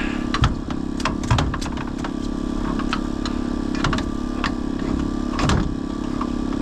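A small engine runs steadily with a low hum. Several sharp knocks and clatters sound at irregular moments on the boat deck as a fishing gig pole is handled, the loudest about halfway through.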